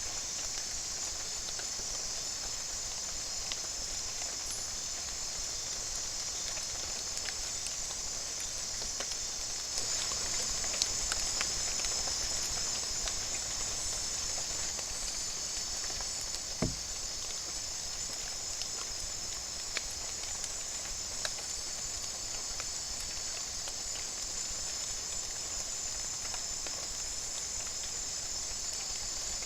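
Steady high-pitched chorus of forest insects, with scattered faint clicks and one low thump about 17 seconds in.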